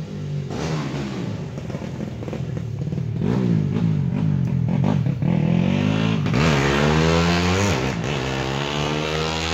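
Motorcycle engines revving: quick repeated throttle blips in the middle, rising and falling in pitch, then a longer rev that drops and climbs again, loud throughout.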